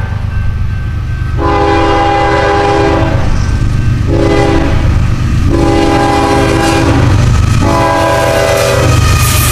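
Union Pacific diesel locomotive's air horn sounding a chord in separate blasts, long ones and a short one, the pattern for a grade crossing, over the low rumble of the approaching train's engine and wheels.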